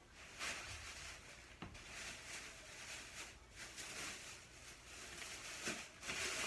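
Groceries being unpacked and handled: faint, irregular rustling of packaging in several short swells, with a few light knocks.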